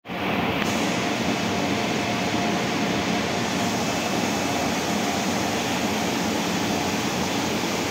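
Offset printing machinery running: a loud, steady mechanical rush with a faint steady whine in it.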